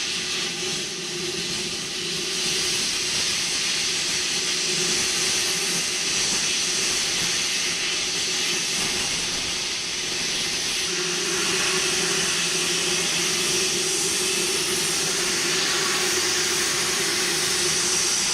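Plasma cutter cutting through a steel plate: a steady, loud hiss of the plasma arc and air jet with a low hum under it, unbroken throughout.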